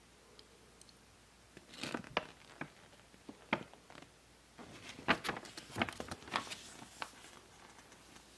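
Packaging being handled during a ceiling fan unboxing: irregular crinkling and crackling with sharp clicks, starting about two seconds in and busiest in the second half.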